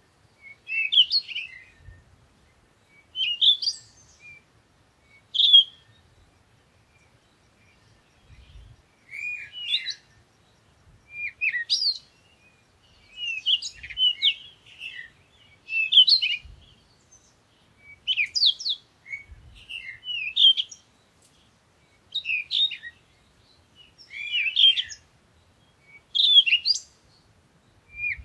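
A bird singing short, varied chirping phrases, one about every two seconds, with a longer pause a quarter of the way through.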